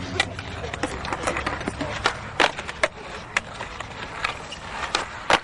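Skateboard on concrete: a series of sharp, irregular clacks and knocks from the board and its wheels, about a dozen over a few seconds.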